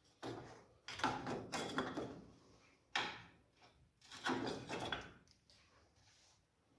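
About five short scraping clunks of metal parts being handled, each starting sharply and fading within about half a second.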